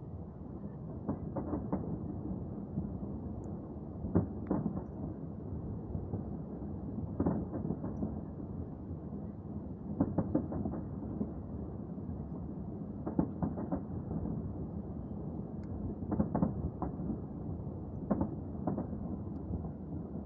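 Distant fireworks salute: groups of two to four booms, one group about every three seconds, over a steady low rumble.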